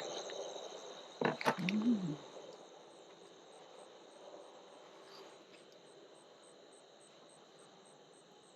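Night insects, crickets by the sound, chirping steadily in high tones with a pulse about three times a second. About a second in there is a brief louder burst of rustling with a short low sound that rises and falls in pitch.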